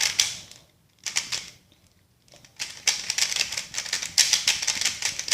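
Rapid plastic clicking of a GAN 356 Air S 3x3 speed cube being turned by hand, in short bursts with brief pauses in the first couple of seconds, then a steady run of turns.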